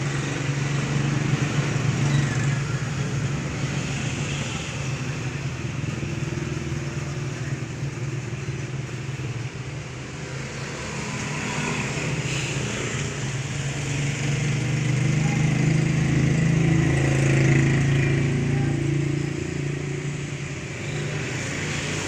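Road traffic of motorcycles and motorized tricycles running past, with a steady engine drone that swells louder about two-thirds of the way through.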